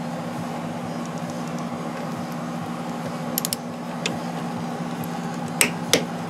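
Hand tools clicking as a brake-line fitting is torqued down: a quick cluster of small metallic clicks about three and a half seconds in, then two louder sharp clicks near the end, typical of a click-type torque wrench, over a steady background hum.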